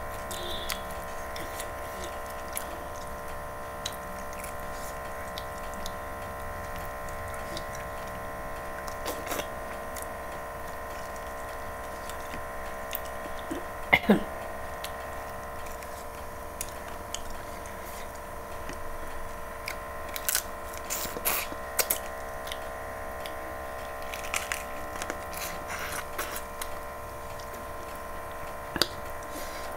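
Close-miked chewing and biting of chicken curry pieces eaten by hand, with scattered wet clicks and smacks and a sharp click about 14 seconds in. A steady hum runs underneath.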